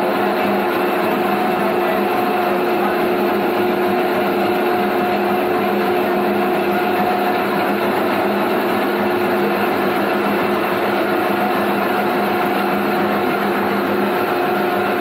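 Motorized coffee cherry pulping machine running steadily as coffee cherries are fed into its hopper and milled, a constant mechanical hum with a few steady pitched tones.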